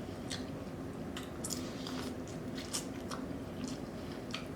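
A person chewing food close to the microphone: wet mouth smacks and short clicks at an uneven pace.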